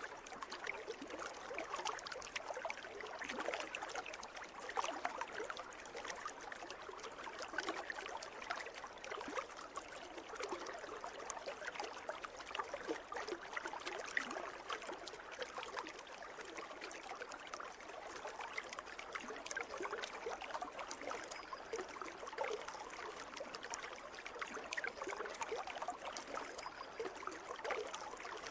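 Water in a pool trickling and splashing steadily, a dense patter of small splashes with no pauses.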